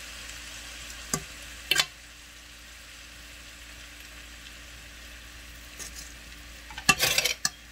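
Hot jollof rice sizzling in a pot after a splash of cold water, a steady hiss, while a metal fork is worked through it. The fork clicks against the pot twice in the first two seconds and in a quick run of louder clicks near the end.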